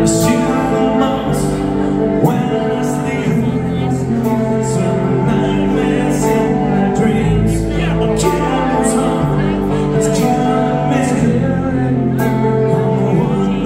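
Live rock band playing at full volume: electric guitar, bass guitar and a drum kit with regular cymbal hits, under a man singing the lead vocal.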